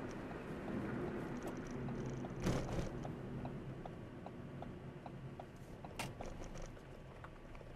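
Steady road and engine noise of a car driving, with a run of light ticks through the middle and two sharp clicks, about two and a half seconds in and near six seconds.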